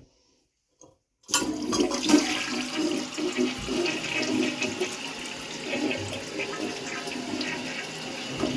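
A 1987 Kilgore Aladdin toilet flushing, a 3.5-gallons-per-flush model. The rush of water starts suddenly about a second in and runs on steadily.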